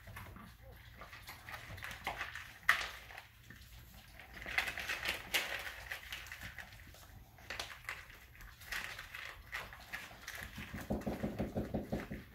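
Puppies eating and jostling at a food dish: irregular small crunching clicks and ticks of kibble being chewed and pushed about, with a low rumbling sound setting in near the end.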